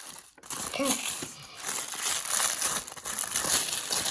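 Plastic toy packaging crinkling and rustling as a small wrapped packet is handled and opened.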